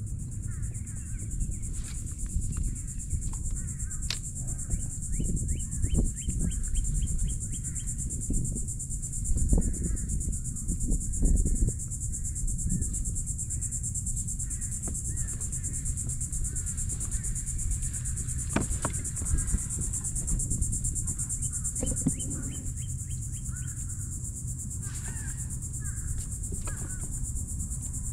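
Steady high-pitched drone of insects, with scattered bird chirps over a low rumble. Two quick runs of light ticks and a few sharp knocks come and go.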